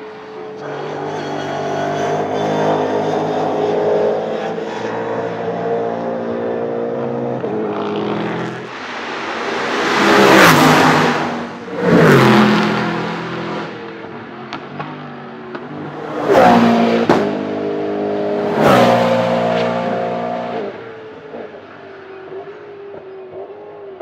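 V8 touring race cars running hard at high revs, then four loud close pass-bys, each dropping in pitch as the car goes by. The engine note fades away near the end.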